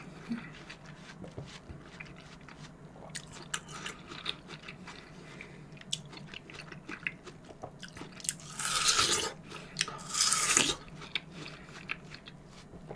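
Close-miked eating sounds of a person chewing young coconut: soft chewing with scattered small wet clicks. About two-thirds of the way through come two louder rushing, hissing sounds, each about a second long.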